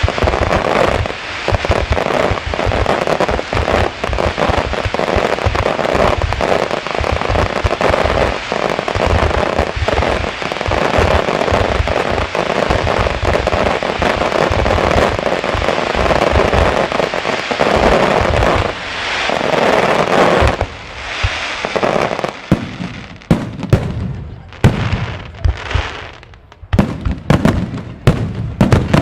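Wide starmine fireworks barrage: shells launched and bursting in rapid succession, close enough that the bangs and crackle merge into one continuous din. From about two-thirds of the way through, it thins out into separate loud bangs with short gaps between them.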